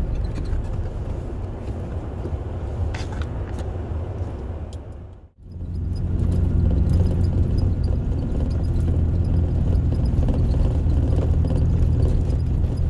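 Inside a moving vehicle on a dirt road: a steady low drone of engine and tyre noise. It cuts out suddenly about five seconds in and comes back louder.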